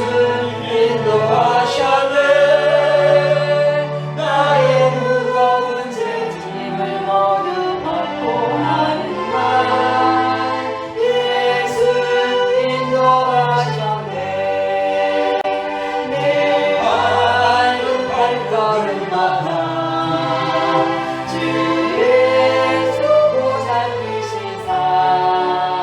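Choir singing a Korean gospel hymn, with steady low notes held beneath the melody.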